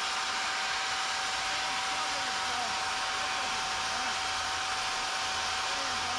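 Electric 70 mm ducted fan of a handheld air umbrella running at full power: a steady loud rushing blast with a constant whine.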